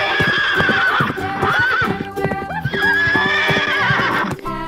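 A herd of horses galloping, with hooves drumming and two long whinnies, the first fading out about a second in and the second running from just under three seconds to past four.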